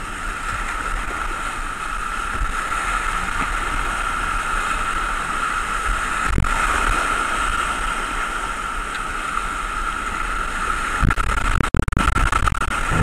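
Whitewater rapid rushing loudly and steadily around a kayak running it. A few sharp knocks near the end.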